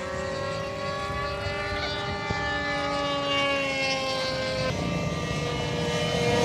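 RC model airplane engine and propeller droning in flight, a steady pitched whine that drops in pitch about two thirds of the way through.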